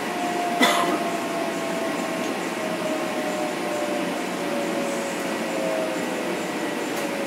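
Inside an M7 electric multiple unit, the Mitsubishi IGBT inverter and AC traction motors give a steady whine that falls slowly in pitch as the train slows, over steady rolling noise. One sharp clank comes just over half a second in.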